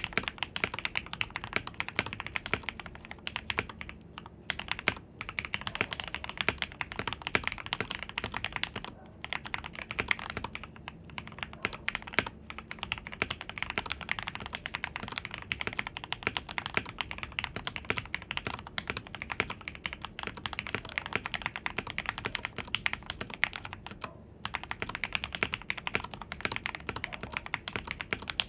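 Typing on a Royal Kludge RK84 mechanical keyboard with lubed Gateron Milky Yellow linear switches, case foam and PBT Cherry-profile keycaps: fast, continuous keystrokes, with a few short pauses.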